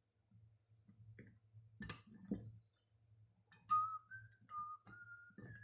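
A person whistling a short tune, the notes stepping up and down, starting a little past halfway through; a couple of light knocks come about two seconds in.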